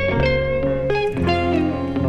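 Background music led by guitar: plucked notes over sustained bass notes that change about every second.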